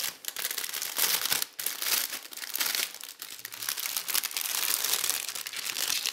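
Packaging crinkling and rustling in irregular surges as a folded shirt is unwrapped and handled.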